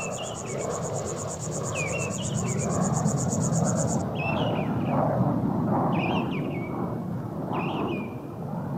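Jet aircraft passing high overhead: a steady rush of noise that builds over the first few seconds and then holds. A cricket trills until about four seconds in, and a bird gives short chirps every couple of seconds.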